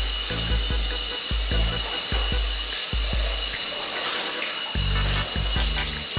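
Bathtub tap running, water splashing onto bleach-dyed jeans as they are rinsed out, under background music with a steady bass beat.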